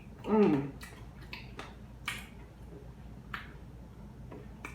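A person eating steak with mouth close to the microphone: a short hummed "mm" about half a second in, then wet chewing with sharp mouth and lip clicks every half second or so.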